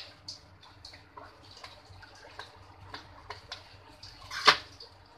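A knife cutting steamed dhokla in a steel plate: scattered light clicks as the blade touches the metal, and one sharp clink of knife on plate near the end.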